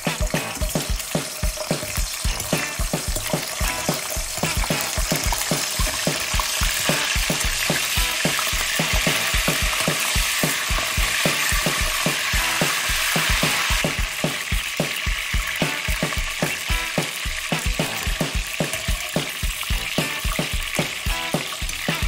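Cicadas deep-frying in hot peanut oil in a wok: a steady sizzle that swells louder through the middle, then drops back about two-thirds of the way through.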